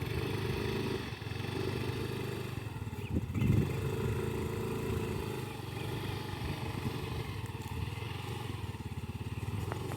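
Small motorcycle engine running steadily while riding, heard from on board, with a brief louder surge about three and a half seconds in.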